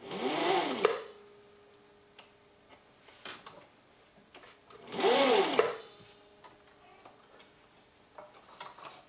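Viking Husqvarna 6010 sewing machine run in two short bursts, near the start and about five seconds in. Each time the motor whines up in pitch and back down. The drive belt is slipping.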